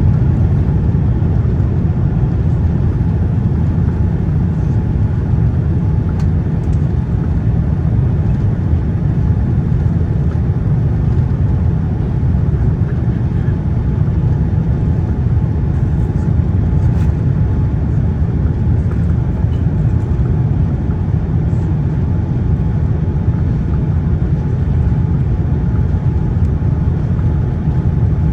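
Steady low rumble of a Boeing 787-9 airliner during landing, even throughout with no sudden thumps or changes.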